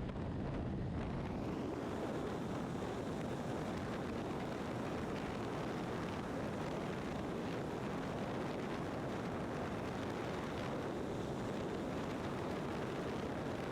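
Steady rush of wind and road noise on a BMW R1200RT motorcycle at highway speed in strong gusty side winds, the wind buffeting the microphone.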